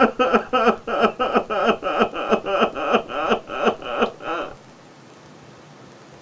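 A man sobbing in short, rhythmic voiced gasps, about three or four a second, which stop a little past the middle.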